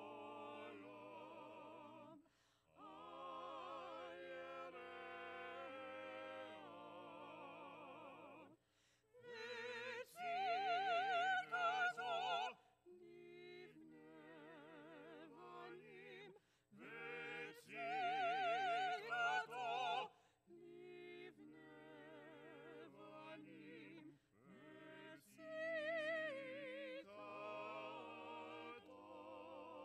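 Small choir singing a slow piece in long phrases with short breaks between them, the voices carrying a wide vibrato. A high voice comes to the front and is loudest in two phrases, about ten seconds in and again near eighteen seconds.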